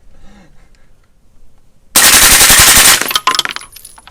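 Suppressed 9mm machine gun, a CMMG Banshee with an AB Suppressor Phantom titanium can, firing one full-auto burst lasting about a second, starting about two seconds in. Spent brass casings clink and tinkle as they land after the burst.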